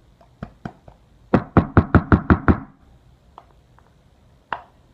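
A nearly empty cream container being knocked against a hard surface to shake the last of the cream out: a few light clicks, then about seven quick knocks in a row about a second and a half in, and one more tap near the end.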